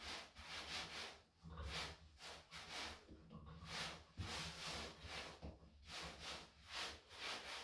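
Faint, repeated soft rubbing and patting of hands shaping soda bread dough into a ball on a floured wooden worktop.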